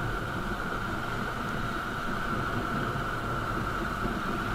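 Motorcycle riding along a street: steady engine and road rumble under a constant hiss of wind on the bike-mounted camera.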